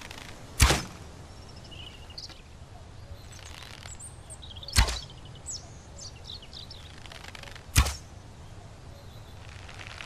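Three sharp bow-and-arrow shots, each a sudden crack with a short tail, roughly three to four seconds apart. Birds chirp faintly between them.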